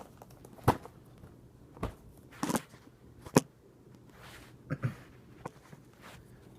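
Handling and opening a cardboard trading-card blaster box: a series of sharp taps and knocks roughly a second apart, with a short rustle about two and a half seconds in.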